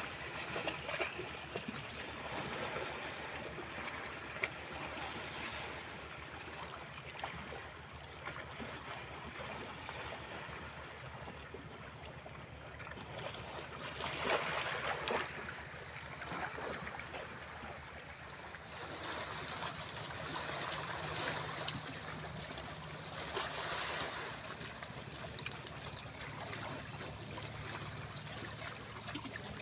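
Small sea waves washing and splashing among shoreline rocks in shallow water, a steady wash with louder surges about halfway through and again a few seconds later.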